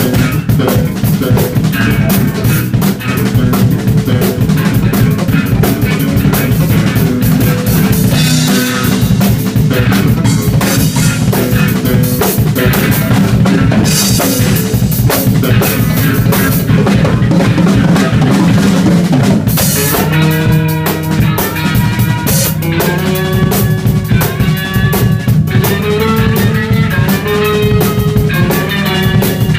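Band playing live, with a drum kit beating steadily under guitar. About twenty seconds in, a melody line with held, bending notes comes in over it.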